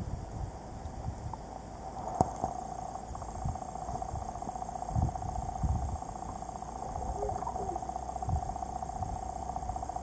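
Muffled noise from a camera held underwater: a steady hum under irregular low thumps, with a sharp click about two seconds in.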